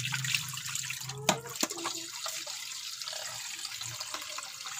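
Tap water running and splashing over lemongrass and a metal pot being rinsed in a tiled sink, with a single sharp knock about a second in. The flow stops near the end.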